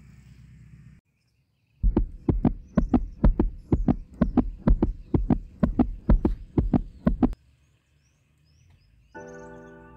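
Heartbeat sound effect: a fast, steady lub-dub of paired low thumps, about two beats a second, that stops suddenly. Soft piano music comes in near the end.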